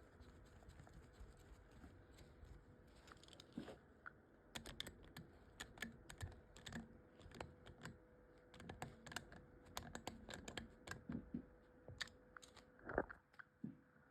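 Irregular light clicks and taps of small objects being handled, starting about three seconds in, with a louder knock near the end, over a faint steady hum.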